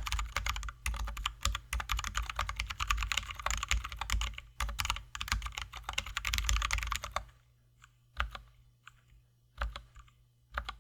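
Mechanical keyboard with lubed, filmed Zealios V2 67g tactile switches and XDA keycaps (Drop ALT high-profile) being typed on quickly and continuously. About seven seconds in, the fast typing stops and a few single, spaced keystrokes follow.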